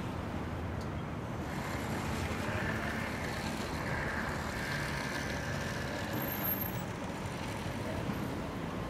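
Busy city street ambience: a steady din of cars, trucks and buses rolling past, swelling louder from about a second and a half in until about seven seconds, with a brief high-pitched tone about six seconds in.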